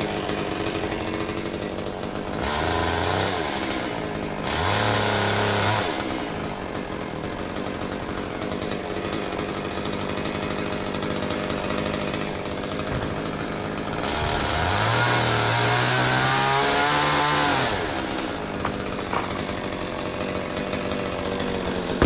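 Chainsaw running while the top of a beech tree is cut out, its engine revving up to full speed twice in quick short spells in the first few seconds, then again for about three seconds past the middle, dropping back to a lower steady run in between.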